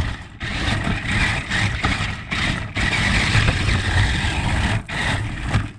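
Radio-controlled toy car running, its motor and gears whirring steadily with a few brief cut-outs.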